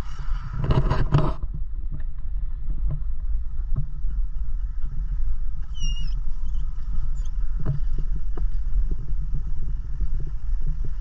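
Vehicle driving slowly down a dirt road, heard from inside the cab: a steady low rumble of engine and tyres with scattered small crackles from the road surface. A brief louder rattle comes about a second in.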